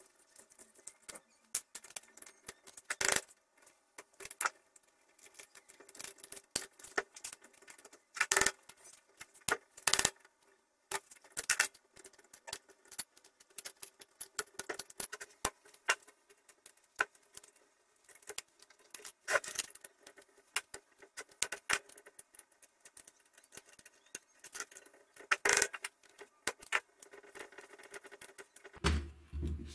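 Irregular metal clicks, clinks and knocks as a rusty chainsaw engine and its parts are handled and taken apart with hand tools on a concrete floor. A low steady hum starts near the end.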